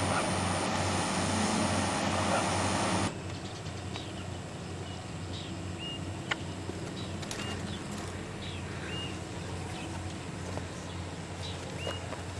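A rice harvester runs close by for about three seconds with a dense mechanical din, then stops suddenly. Quiet field ambience with a low steady hum follows, and a bird gives a short rising chirp four times.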